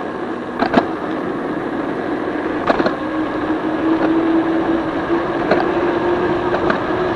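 E-bike's 1000-watt, 48-volt electric hub motor running under throttle with a steady whine, over the rush of wind and tyre noise that grows slowly louder as the bike picks up speed. A few sharp knocks sound now and then.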